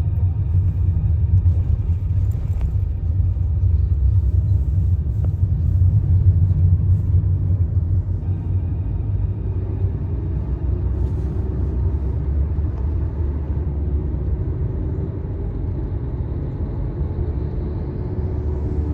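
Low, steady rumble of a car on the move, with a faint engine tone slowly rising in pitch in the second half.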